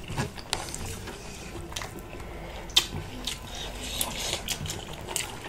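Close-up eating sounds: chewing and wet mouth smacks while fried chicken and rice are eaten by hand, with scattered small clicks.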